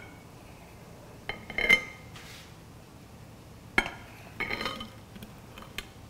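A large kitchen knife clinking against the cake plate as a slice of cake is cut. There are ringing clinks a little over a second in, the loudest close to the two-second mark, a sharp one near four seconds followed by a short cluster, then a few light ticks.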